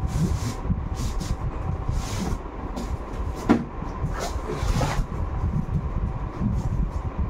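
Long cardboard shipping boxes being handled and slid against each other: rubbing and scraping of cardboard, with a sharp knock about three and a half seconds in.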